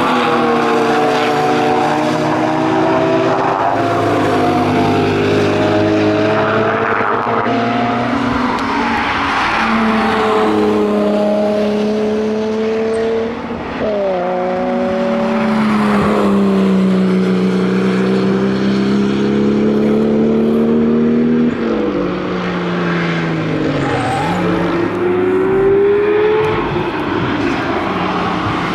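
A string of performance cars driven hard past one after another, each engine revving and changing gear so its pitch climbs and falls. It opens on a BMW E46 M3, switches abruptly to a Mk4 Toyota Supra about halfway, and ends with a Porsche 911 GT3 passing.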